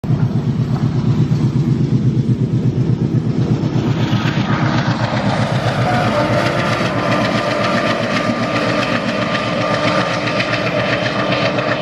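Diesel locomotive hauling a passenger train past, its engine throbbing in a steady pulse. From about four seconds in, the rattle and clicking of wheels and coaches on the track grows in.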